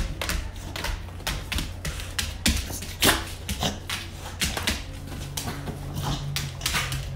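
A dog's claws clicking on a vinyl floor as it walks and turns about, in quick irregular clicks, a few a second.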